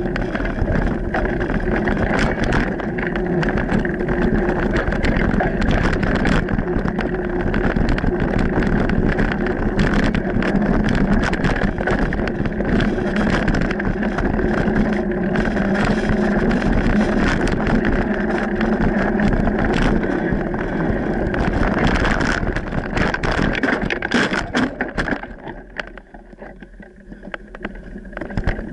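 Mountain bike rolling along a dirt singletrack: constant tyre noise with clicking and rattling as the bike goes over bumps, mixed with wind on the microphone. It goes quieter for a few seconds near the end.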